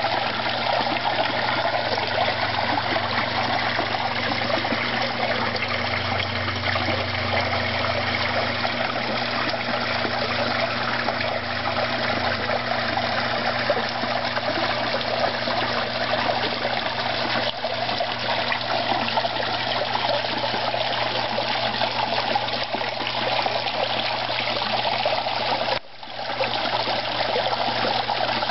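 Steady trickle of running water in a koi pond, with a low steady hum underneath. The sound breaks off for a moment near the end.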